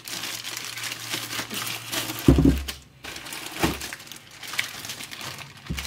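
Plastic bags crinkling and rustling as bookshelf speakers are pulled out of them, with a dull thump about two seconds in and a smaller one a little later.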